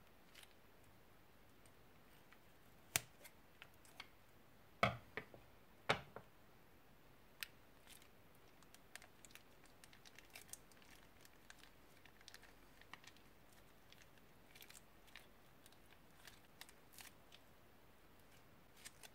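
A few sharp snips of scissors cutting open the tip of a plastic piping bag, the loudest about three to six seconds in, then faint crinkling and crackling of the plastic bag as slime with foam beads is squeezed out of it.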